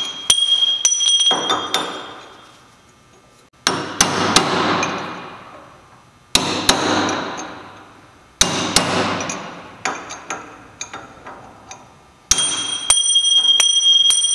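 Hammer blows on a drift, driving the bearing races and seal out of a Jaguar XJ6 IRS output shaft's brake caliper bracket: sharp metal-on-metal strikes, mostly in pairs about every two seconds, each echoing and dying away. A high metallic ring hangs on after the first blows and again after the last few.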